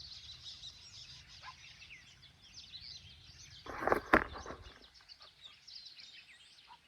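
Many small birds chirping and twittering in a dense, continuous chorus, with a brief rustle and a sharp knock about four seconds in.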